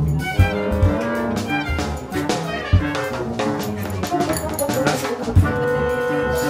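Jazzy background music with brass and a drum kit.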